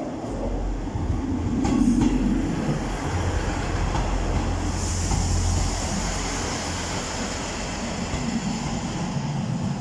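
Northern Class 158 diesel multiple unit pulling into the platform and passing close at low speed: diesel engines and wheels rumbling, loudest about two seconds in. A steady high hiss starts about halfway through.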